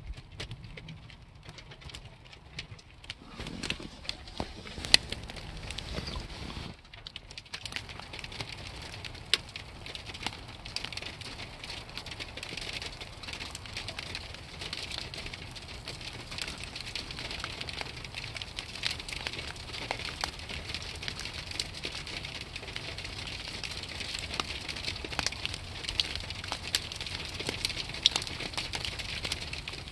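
Snow pellets (graupel) pattering: a dense, irregular run of small ticks and clicks, thinner at first and denser after the first several seconds.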